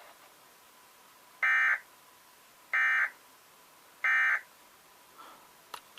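Emergency Alert System end-of-message data bursts: three short, identical, harsh buzzing bursts of digital tones, about a second and a half apart. They mark the close of a tornado warning broadcast.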